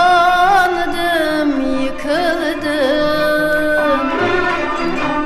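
Music: a Turkish song, one melodic line of long held notes that slide between pitches over softer accompaniment.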